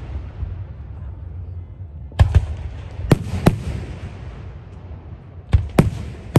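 Aerial firework shells bursting: about six sharp bangs in three pairs, the first about two seconds in, the next a second later and the last near the end, with a low rolling rumble and fading crackle between them.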